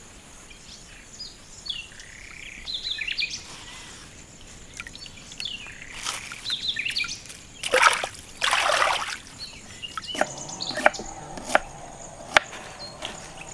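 Water sloshing and splashing, loudest in two short bursts about eight seconds in, with birds chirping and a steady high insect whine behind it; three sharp clicks come near the end.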